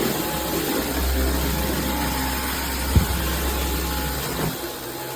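Dyson V15 Detect Plus cordless stick vacuum running steadily as it is pushed over the floor, with a single knock about three seconds in.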